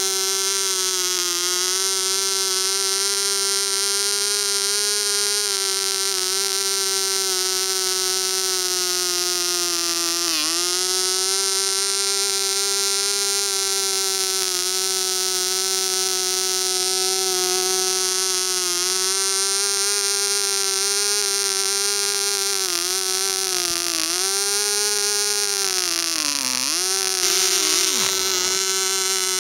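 AE 0.1cc model diesel engine running steadily on its propeller. Its note sags briefly and recovers about ten seconds in, and again several times near the end, the deepest dip coming just before the end.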